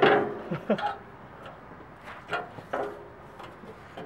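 Plastic under-engine splash shield of a Toyota 4Runner being pushed and shifted against the underbody by hand: a sharp knock at the start, then scattered light knocks and scrapes. A brief voice sound about half a second in.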